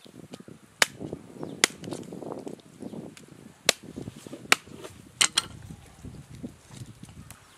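Large curved knife cutting up a turkey leg on a wooden chopping block: six sharp knocks as the blade strikes through the meat onto the wood, the last two in quick succession, with softer handling of the meat between them.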